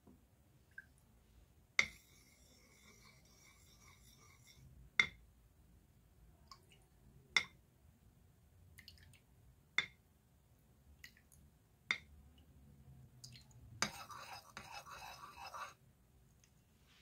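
A metal spoon clinking against ceramic bowls: five sharp clinks about two and a half seconds apart, the first leaving a ringing tone for a few seconds. Near the end, about two seconds of the spoon stirring and scraping paint in a bowl.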